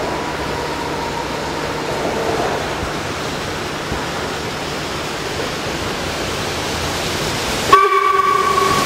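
Steam locomotive approaching with a steady noise of the running train, then its whistle blowing with a sudden loud start near the end, a chord of several steady tones held on.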